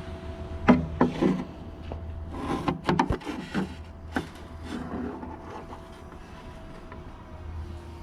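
Handling noises: a cluster of sharp knocks, clicks and rubbing in the first few seconds, then a few more, over a steady low hum.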